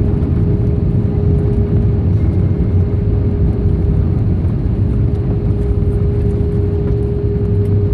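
Airbus A320 cabin noise on the landing rollout: a loud, steady rumble from the wheels on the runway and the running engines, with a constant hum throughout.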